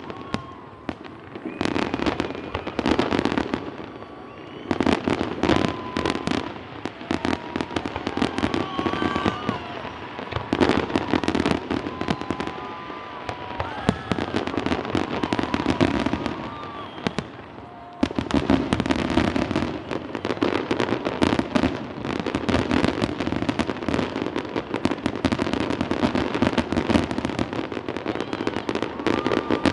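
Fireworks display: many aerial shells bursting in rapid, overlapping volleys, easing briefly a little past the halfway point before picking up again.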